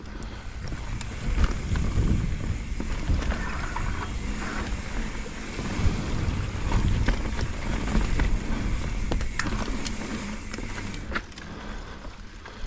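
Mountain bike riding down a rough trail: the tyres rumble over the ground and the bike rattles and clicks. The rumble eases near the end.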